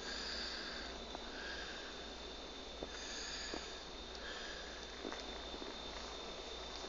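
Soft sniffing breaths recurring about once a second, with a few faint clicks.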